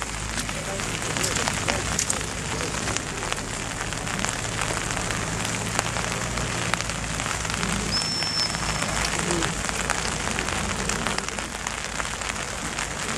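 Steady rain pattering, with many small drop ticks, over a faint low hum. About eight seconds in comes a single high, steady note of about a second from a handler's dog whistle.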